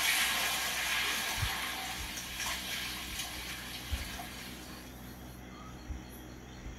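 Film soundtrack: the rushing spray of a large water splash dying away over several seconds, with a few dull low thuds. Crickets chirp faintly near the end.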